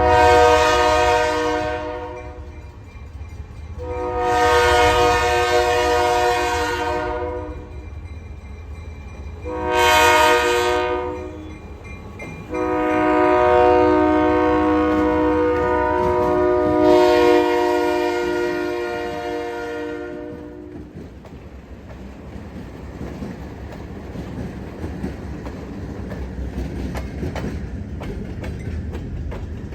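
Locomotive horn sounding the grade-crossing signal: two long blasts, a short one, then a long held blast, each a chord of several steady notes. After the horn stops, the train rumbles past with faint clicking of wheels over rail joints.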